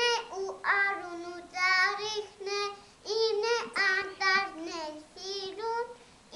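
A young child singing a melody in a high voice, in short held phrases with brief breaths between them.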